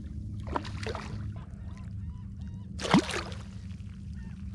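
Hooked redfish thrashing at the water's surface beside a kayak, in short splashes, with the loudest splash about three seconds in as the landing net goes into the water.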